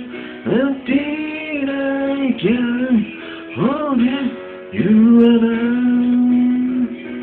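A person singing a slow ballad into a handheld microphone over backing music, in several short phrases ending in one long held note. The sound is cut off above the mid treble, as from a cellphone recording.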